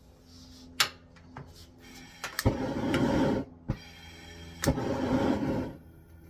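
Gas stove burner being relit with a lighter: a sharp click, then two hissing rushes of gas about a second long each, each starting with a click.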